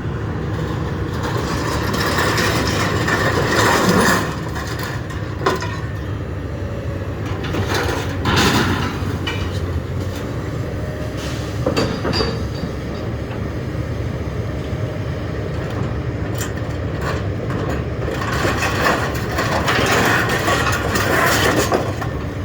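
A heavy scrap-handling machine's engine running steadily while scrap metal clanks and scrapes in several bursts as it is grabbed off the load.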